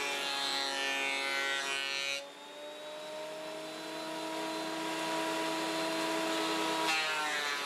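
Benchtop thickness planer running, its motor giving a steady whine. The sound is loud and rough while a board passes through the cutterhead, drops abruptly about two seconds in to quieter running with no load, and rises again near the end as another board starts through.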